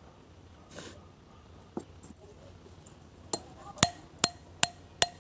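Engine valve tapped again and again onto its seat in a motorcycle cylinder head: sharp, ringing metal clicks, about two to three a second, starting about three seconds in.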